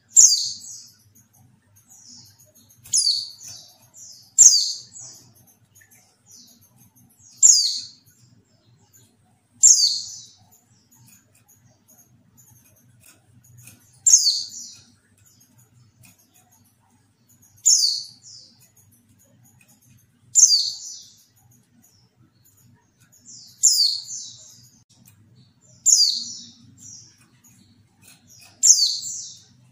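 Female white-eye (pleci) calling: short, high chirps, each a quick downward sweep, repeated about eleven times at uneven gaps of two to four seconds.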